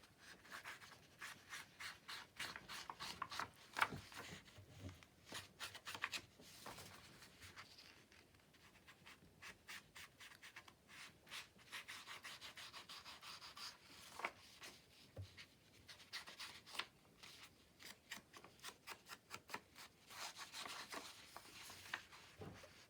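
Faint, irregular rubbing and rustling of paper being handled and worked by hand, in many short strokes, with a quieter stretch about eight seconds in.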